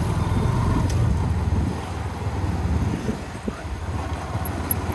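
Steady low rumble of riding a motorcycle on the road, engine and road noise heard from the rider's position.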